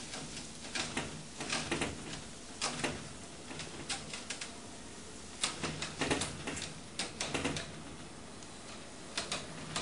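A cat's claws scratching and catching on a window screen as it climbs, in irregular clusters of sharp clicks and scratches.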